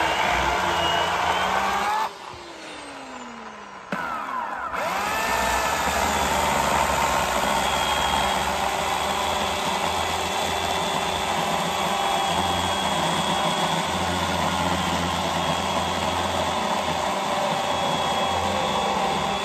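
Bosch electric chainsaw cutting a pine log: the motor runs under load, is let off about two seconds in and winds down with falling pitch, then is started again about four seconds in, spins up with rising pitch and runs steadily through the cut.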